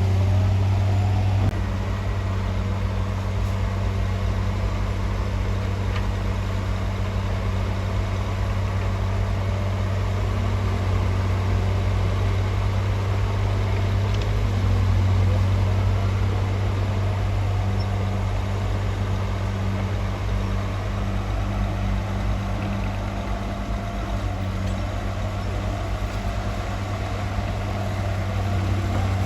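Heavy construction machine's diesel engine running steadily with a low, even drone.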